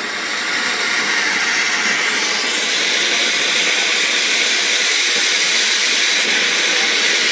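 A long-burning firework hissing steadily as it spews sparks, swelling over the first second and then holding level.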